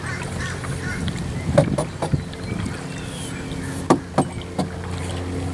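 A double-bladed paddle working a plastic (polyethylene) canoe through the water: strokes dipping and splashing, with about half a dozen sharp knocks spread over the strokes. A steady low hum runs underneath, and faint bird chirps come and go.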